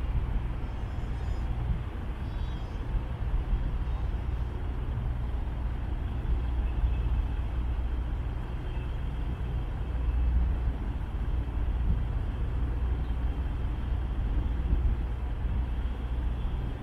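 Steady low rumble and hum of harbour-side outdoor ambience, with a faint hiss above it and no distinct events.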